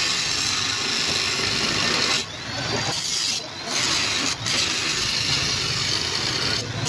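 Electric angle grinder working the joint of a steel square-tube frame, a loud steady grinding sound that drops off briefly several times, about two, three and a half and four and a half seconds in and again near the end.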